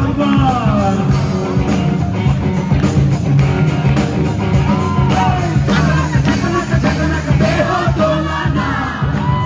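Live rock band playing loud: a male singer over electric guitar, with a steady drum beat and heavy bass.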